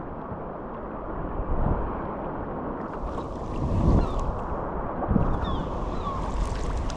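Wind buffeting the microphone over water sloshing and splashing around a sea kayak, with gusts and splashes coming every second or two and the splashing growing livelier about three seconds in.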